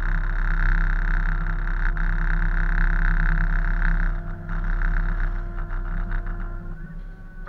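A tug's diesel engines drone steadily, heard from inside the wheelhouse, with a buzzing rattle over them that weakens about four seconds in and drops away near the end.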